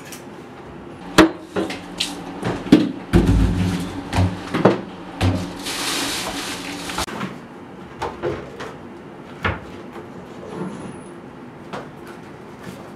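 Kitchen handling sounds: a run of sharp knocks and clacks as cupboard doors, dishes and containers are moved and set down, with a few heavier thuds early on and a short rushing hiss about six seconds in.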